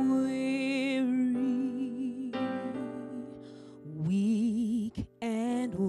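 A woman sings long held notes with a wide vibrato, without clear words, sliding up into a new note about four seconds in. Soft backing music plays under the voice of this slow gospel ballad.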